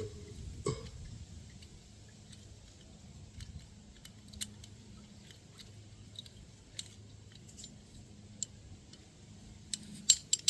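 Scattered light metallic clicks and taps of hand tools and small carburetor parts being handled, with a couple of sharper clicks near the end.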